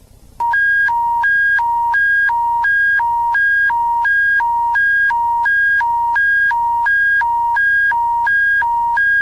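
Emergency broadcast alert tone: a lower and a higher beep alternating evenly, each held about a third of a second, starting about half a second in.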